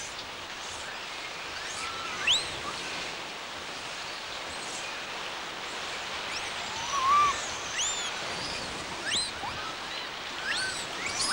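Outdoor ambience: a steady hiss with short, high chirping animal calls scattered through it, a second or two apart, the loudest a sharp rising chirp about two seconds in.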